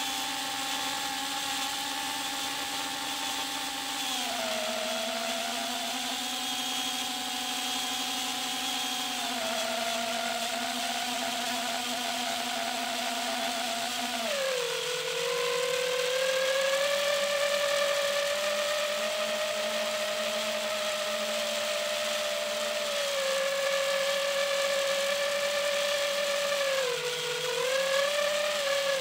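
FPV quadcopter's electric motors and propellers whining steadily in flight. The pitch drops in steps as the throttle is eased, about four seconds in and again around fourteen seconds, and wavers near the end.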